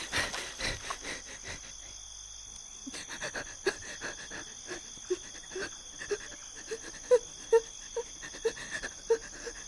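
Night insects such as crickets, a steady high-pitched trilling, with a run of short low notes repeating two or three times a second from about halfway through.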